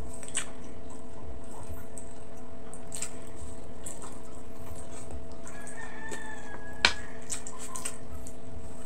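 Wet mouth sounds of eating soft braised pork hock: scattered smacks and clicks of chewing, the sharpest about seven seconds in. A rooster crows once in the background about six seconds in, one held call of about a second.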